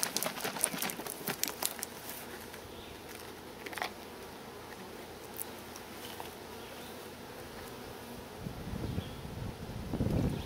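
Honeybees buzzing around an open nuc hive, with a flurry of light clicks and taps in the first two seconds, another tap about four seconds in, and a low rumble near the end.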